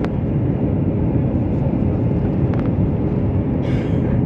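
Steady cabin noise of a jet airliner on descent: engine and airflow rumble, low and even, with a faint steady hum. A brief hiss comes near the end.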